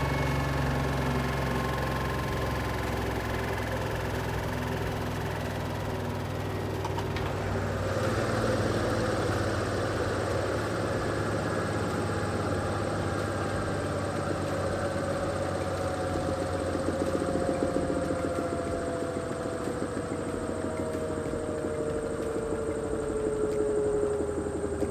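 Vestel washing machine's motor and drum winding down from a spin, a whine falling slowly and steadily in pitch. About 8 seconds in the low hum drops away and a rougher, noisier sound takes over beneath the falling whine.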